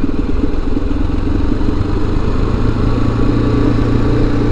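Motorcycle engine running at a steady, even note.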